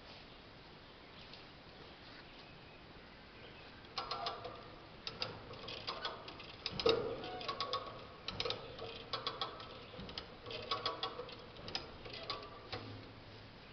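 Quick metallic clicking and clanking in repeated bursts, starting about four seconds in: hand tools being worked on steel.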